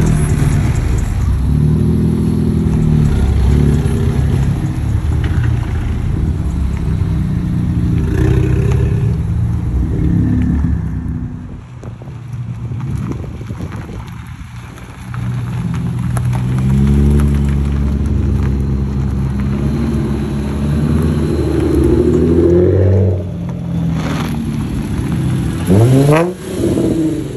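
Car engines pulling away: a steady exhaust drone, quieter for a few seconds in the middle, then a Nissan 350Z's V6 accelerating, with quick rising and falling revs near the end.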